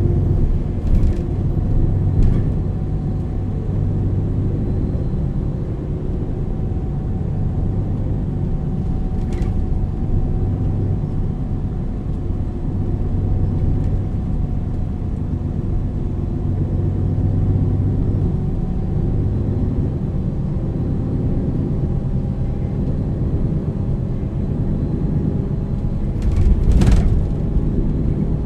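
MAN NL 323 city bus with a ZF EcoLife automatic gearbox driving at steady speed: an even diesel drone with a thin steady whine above it and a few small rattles. A loud thump comes near the end.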